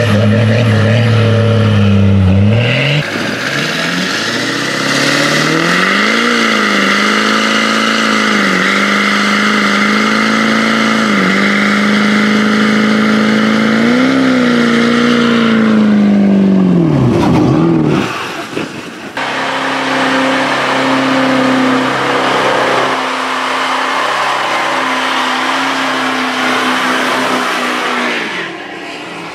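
Diesel pickup trucks doing burnouts, in several short clips: each engine is held at high revs while the rear tyres spin and squeal in a steady hiss. In the middle clip the engine note dips briefly every couple of seconds, then falls away about two thirds of the way through.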